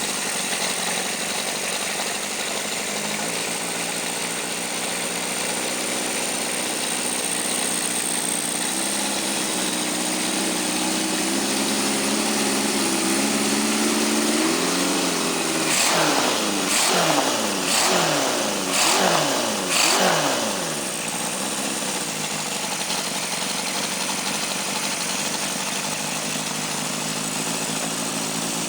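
Freshly rebuilt 1974 Honda CB750 K4 air-cooled inline-four, bored to 836 cc with open air filters, running just after its first start. It idles with the engine speed slowly creeping up, is revved in several quick throttle blips about two-thirds of the way in, then settles back to a steady idle.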